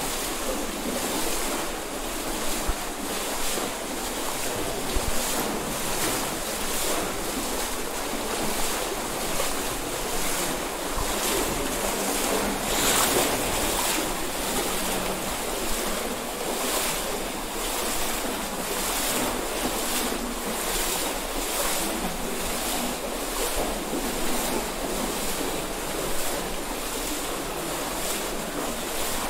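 Cold stream water rushing through a narrow rock gorge, a steady wash of noise, with the splashing of someone wading through it.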